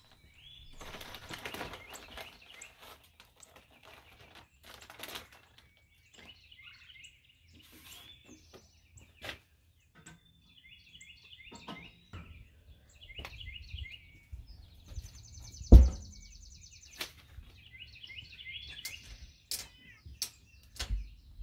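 Songbirds chirping and trilling in repeated phrases, with scattered clunks and knocks from wood chips and a metal chip pan being handled at an electric smoker, and one loud thump a little past halfway.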